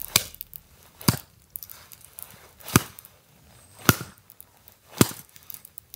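Hatchet splitting short firewood logs on a chopping log: five sharp chopping strikes, about a second apart.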